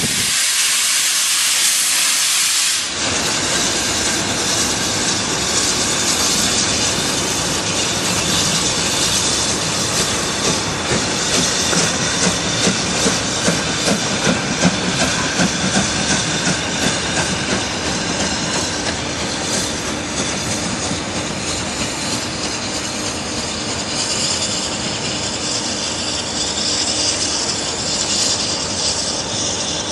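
BR Standard Class 7MT 'Britannia' Pacific steam locomotive 70013 'Oliver Cromwell': a loud hiss of steam that cuts off about three seconds in. Then comes the sound of the locomotive and its train moving, with steam noise and a regular beat around the middle.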